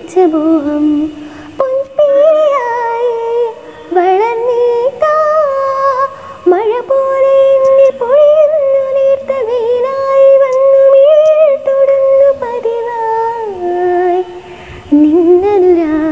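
Background music: a woman's voice humming a slow, ornamented melody in long held notes that waver in pitch, with a short break every few seconds. It is the wordless passage of a Malayalam film song.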